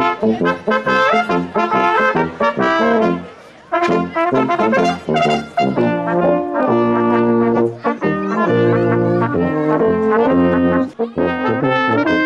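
Brass band music with trumpets and trombones playing a rhythmic tune, pausing briefly a few seconds in before carrying on.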